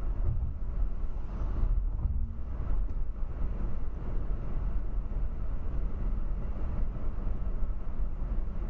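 Steady low road and engine rumble of a car cruising at about 40 mph, heard from inside the cabin.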